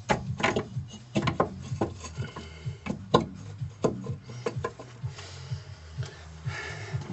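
Rear brake drum of a Lada Granta being worked by hand over the new brake shoes onto the hub: a run of metal knocks and clunks for the first five seconds or so, then a rough scrape near the end as it slides into place.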